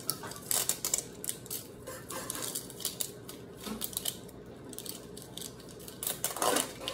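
Hands crinkling and picking at small plastic packaging to get it open: a run of scattered crackles and clicks.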